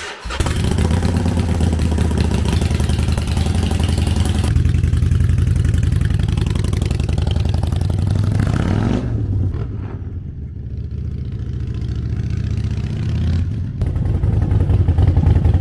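Harley-Davidson V-twin motorcycle engine running. Its pitch rises in a rev about eight seconds in, then it drops back quieter and builds again, louder near the end.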